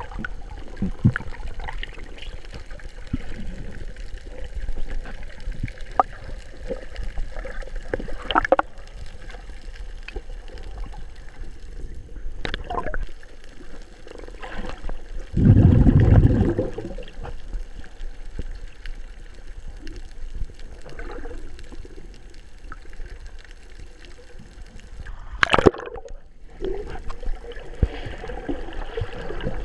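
Seawater gurgling and bubbling, heard from a camera held underwater, with scattered sharp clicks. There is a loud low rush about halfway through and a short loud burst near the end.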